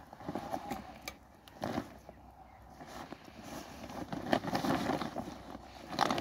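Woven plastic sack rustling and crinkling as it is handled and pulled open, in irregular bursts that grow louder in the second half.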